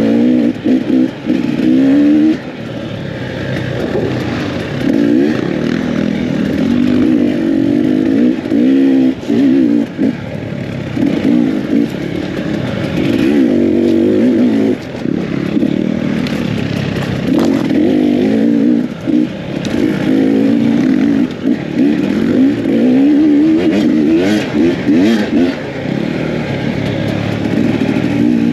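Enduro dirt bike engine ridden off-road, revving up and down as the throttle is opened and shut again and again, with short dips between bursts. A few knocks and clatters are mixed in.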